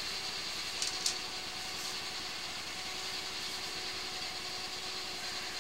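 An engine idling steadily, with two short clicks about a second in.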